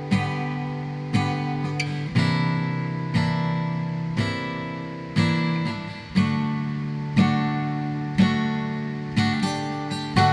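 Instrumental background music: slow strummed chords, about one a second, each left to ring out.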